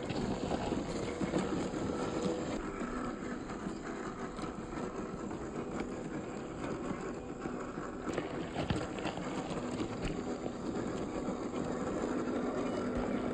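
Small electric motor and gearbox of a 1/12-scale RC off-road truck running with a faint steady whine, the tyres crunching over rough ground in many small clicks.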